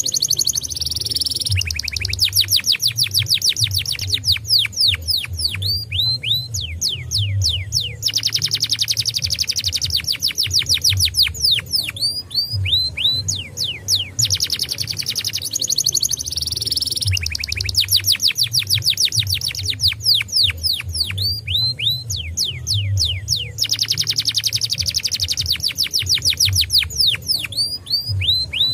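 Canary singing a fast, continuous song: long trills of quick repeated notes alternating with runs of downward-sweeping whistles, broken by brief pauses.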